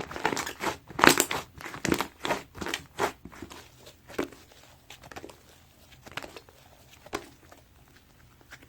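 White slime being squished and pressed by hand, giving off sharp popping clicks. They come in a dense run for the first three seconds, then thin out to single pops about once a second.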